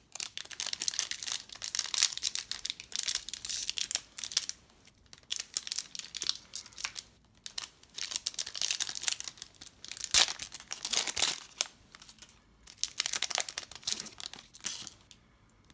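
Plastic wrapping on trading card packs crinkling and tearing as the packs are torn open and handled, in irregular bursts with short pauses and a sharp snap about ten seconds in.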